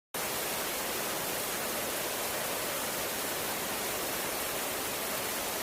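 Steady hiss of water sound effect for a flash flood, cutting in abruptly just after the start and holding at an even level.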